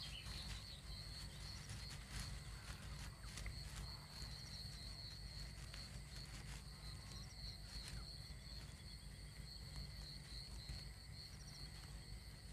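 Faint nature ambience: a steady high-pitched insect trill over a low rumble, with a few soft ticks.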